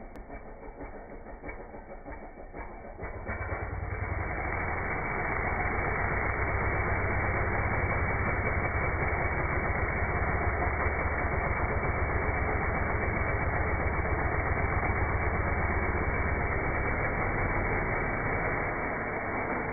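Stihl MS 250 two-stroke chainsaw running low for about three seconds, then held at high revs, loud and steady, as it cuts through a tree branch; it eases off slightly near the end.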